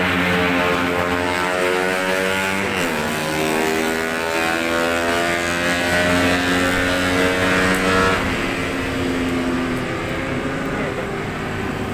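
A motor vehicle's engine running, a sustained droning drone that slides down in pitch about three seconds in, then holds steady and dies away after about eight seconds, over a steady low hum.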